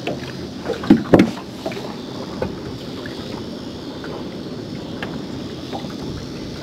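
Steady wind and water noise around a small open fishing boat, with a cluster of sharp knocks about a second in as gear is handled on the deck, and a few fainter clicks after.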